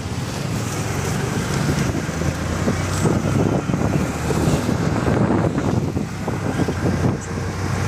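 A motor vehicle driving along with its engine running steadily, wind buffeting the microphone and road traffic noise around it.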